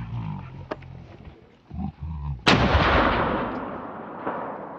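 A gunshot from across the valley: a sharp crack about halfway through, followed by a long echo dying away over the wooded hillsides. A fainter crack comes about two seconds later. Low rumbling sounds come before the shot.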